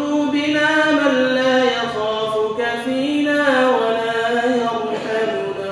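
A man's voice intoning an Islamic supplication (dua) in a slow melodic chant, holding long notes and gliding between them, fading near the end.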